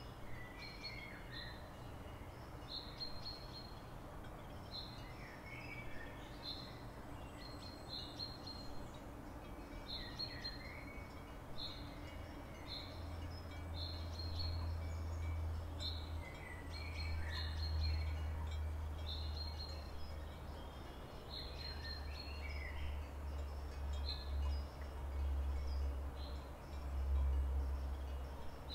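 Songbirds singing: a short high note repeated about once a second, with a lower, falling phrase from a second bird every few seconds. A low rumble comes in about halfway through and grows louder.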